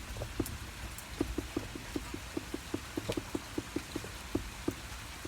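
Raindrops dripping and tapping onto a hard surface in quick, uneven taps, about five a second, over a low steady rumble.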